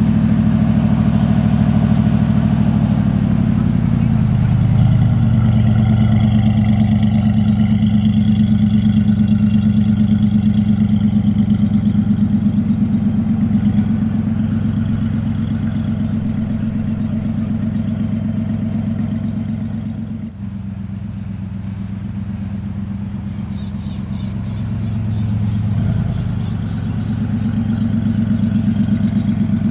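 A car engine idling loudly with a steady rumble, its pitch rising slightly about four seconds in and again near the end.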